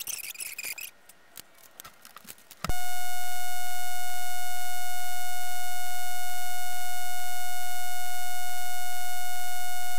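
Faint scattered clicks, then about two and a half seconds in a loud steady beep comes on suddenly and holds at one pitch without changing.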